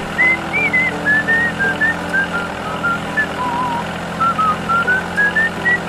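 A whistled tune of short, slightly gliding notes over a steady low hum.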